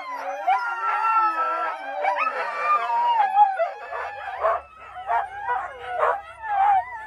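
A pack of sled dogs howling and yipping together, many voices overlapping in wavering, gliding calls. From about four seconds in, repeated barking at about two barks a second takes over, with a low hum underneath.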